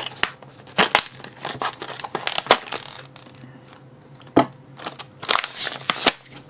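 Hand-handling noises: packaging crinkling and crackling in short scattered bursts, with several sharp clicks, as a new padlock is taken out of its pack.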